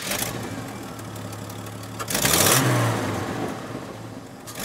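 A vehicle engine running steadily, then revved hard once about two seconds in before dying away.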